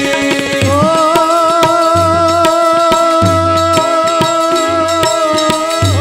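Devotional kirtan music: a man's voice rises onto one long held note about a second in, sung over a harmonium drone, with tabla strokes beating underneath.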